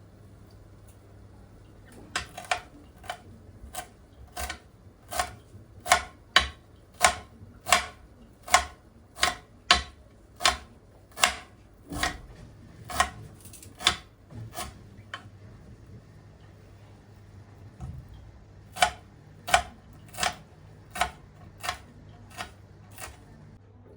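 Knife chopping on a cutting board in slow, even strokes, about three every two seconds. There is a pause of a few seconds before the chopping resumes.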